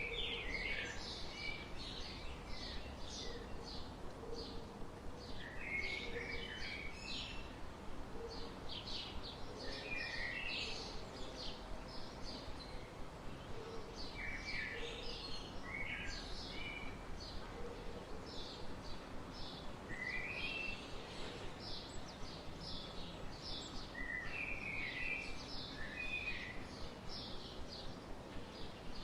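Songbirds chirping and singing, with quick runs of high chirps and a lower, fuller phrase about every four to five seconds, over steady outdoor background noise.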